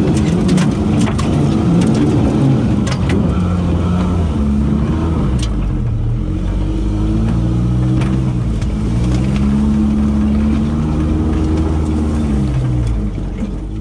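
Off-road 4x4's engine working up a rutted dirt trail, its pitch rising and falling several times as the throttle is pressed and eased. A few sharp knocks are mixed in.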